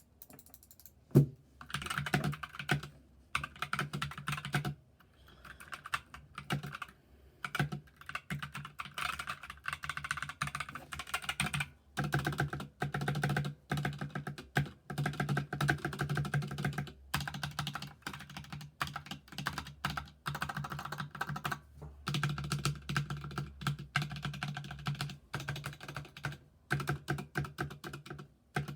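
Stock GK61 60% mechanical keyboard with Gateron Yellow linear switches being typed on: quick runs of keystroke clacks broken by short pauses, with one louder keystroke about a second in.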